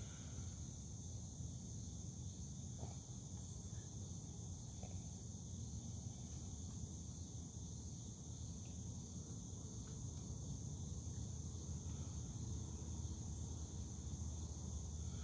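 Steady, unbroken chorus of insects, a high-pitched drone like crickets, over a low steady rumble.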